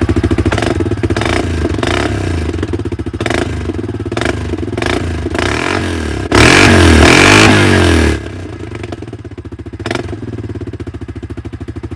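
Yamaha Grizzly 700 ATV's single-cylinder engine running through a custom aftermarket exhaust tip just after a cold startup, with a deep exhaust note. About six seconds in it is revved once for about two seconds, then drops back to idle.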